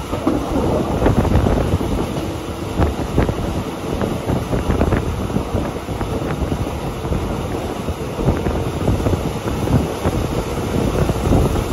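Wind buffeting the microphone at a moving train's open side window, over the train's steady running noise, with a few sharp clicks.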